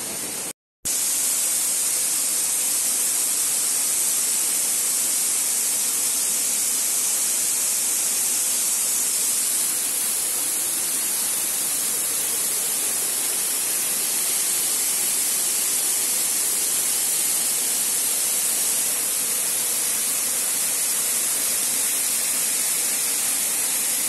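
Steady rushing of a waterfall cascading down a rock face, with the sound cutting out briefly less than a second in.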